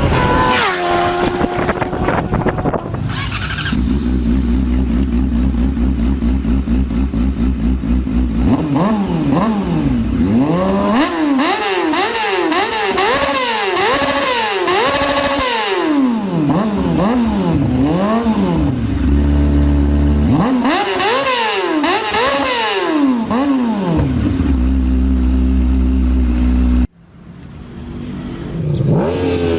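Motorcycle engine starting, then idling, then revved up and down over and over before settling back to idle. It cuts off suddenly near the end and starts again shortly after.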